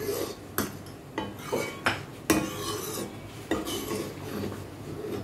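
Metal ladle stirring milk (kheer) in a metal kadhai, knocking and scraping against the pan at irregular intervals, several times a second.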